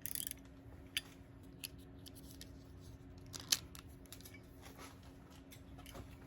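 Sporadic light clicks and scrapes of small hinge parts and hand tools being handled, with a brief rustle at the start and the sharpest click about three and a half seconds in, over a steady low hum.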